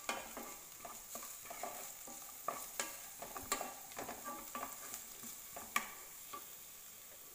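Chopped onions, ginger and garlic sautéing in oil in a steel pan while a spatula stirs them: a quiet sizzle under repeated scraping strokes, with a few sharper taps of the spatula on the pan.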